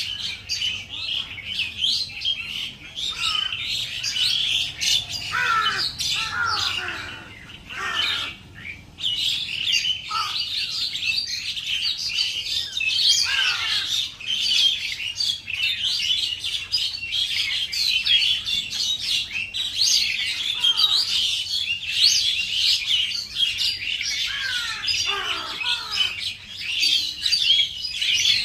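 A flock of small birds chirping and chattering continuously, many calls overlapping, with a few lower, falling calls now and then and a short lull about eight seconds in.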